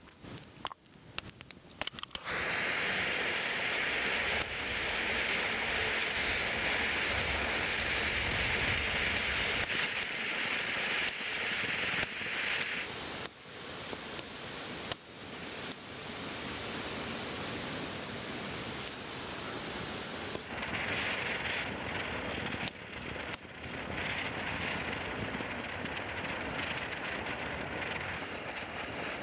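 A few clicks of handling, then from about two seconds in a steady sizzle with many small crackles, as of food frying in hot fat. The sizzle eases and picks up again a couple of times.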